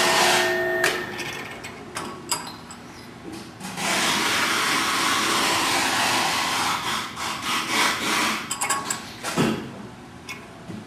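Drill tap machine running three taps at once. The noise stops about a second in, clicks and knocks follow, the machine runs again steadily from about four to eight seconds, and then come rattling knocks.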